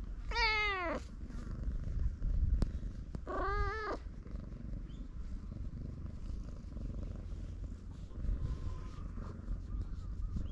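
Brown tabby-and-white cat meowing twice while being stroked: a call that falls in pitch near the start and a shorter rising-and-falling one about three seconds in. Under the calls it purrs with a steady low rumble, loud purring set off by having its throat and head tickled.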